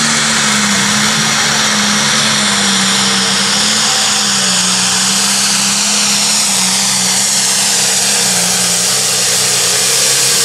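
Turbocharged diesel engine of a John Deere 4.1 Limited Pro Stock pulling tractor running flat out under load during a pull, with a high turbo whistle riding over a steady engine note that wavers slightly in pitch.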